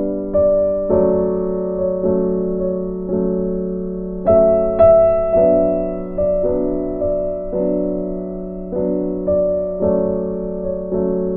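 Slow, gentle piano music: chords struck about every half second to a second, each fading before the next, with a higher, louder pair of notes about four seconds in.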